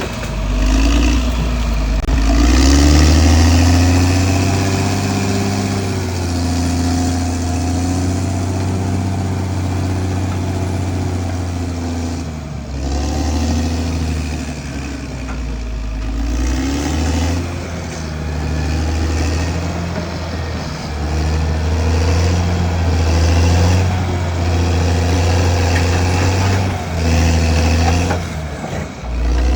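Caterpillar D6R XL bulldozer's diesel engine running under working load, its pitch rising and falling as it pulls, with a few brief dips in level.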